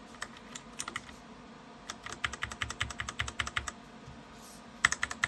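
Typing on a DREVO Seer PRO mini mechanical keyboard with Gateron Brown switches. A few single key clicks, then a quick run of keystrokes from about two seconds in, a short pause, and a louder flurry near the end.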